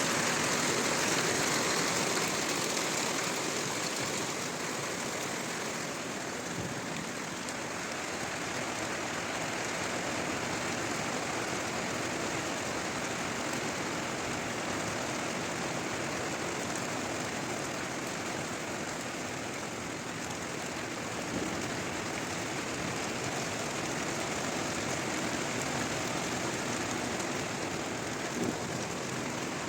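Hail and rain pelting down in a dense, steady hiss, a little louder in the first few seconds.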